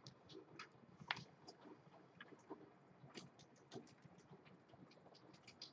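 Faint scattered clicks and light rustles of trading cards and plastic card holders being handled and set down on a playmat, the loudest click about a second in.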